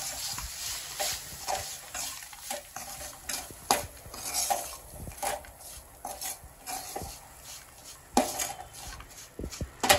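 Metal spatula scraping and clinking against a stainless steel pan in irregular strokes, stirring a dry, crumbly mix of chopped nuts, dried fruit and rose petals so it doesn't stick to the bottom. A few sharper knocks of metal on metal stand out, one near the middle and two near the end.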